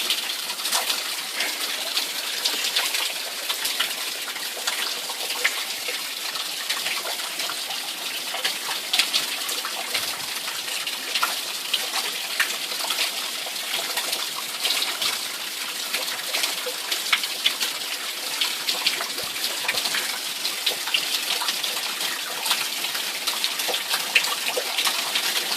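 Steady heavy rain falling in tropical-storm conditions, a continuous hiss with many small drop ticks.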